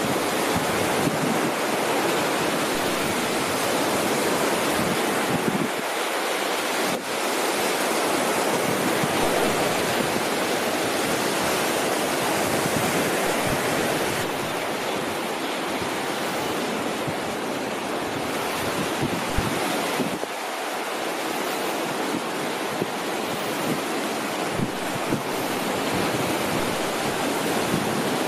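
Small waves washing onto a sandy beach in a steady rush, mixed with wind on the microphone.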